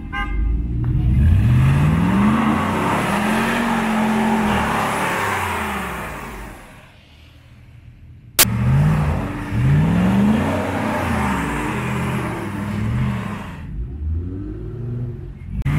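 Pickup engine revving hard in two long bursts, rising and falling in pitch, over a steady hiss of tires spinning on ice while it strains to tow a stuck truck; it has no traction. A single sharp crack about eight seconds in, between the bursts.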